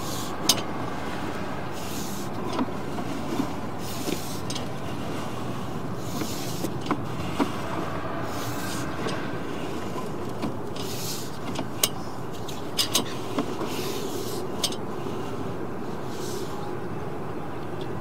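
Sewer camera push cable being fed down the line by hand, with irregular clicks and short hissing scrapes, over a steady background noise.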